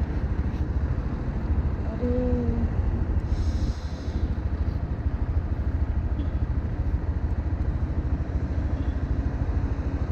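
Honda Monkey 125's air-cooled single-cylinder four-stroke engine idling steadily with the bike at a standstill, a low, even pulse.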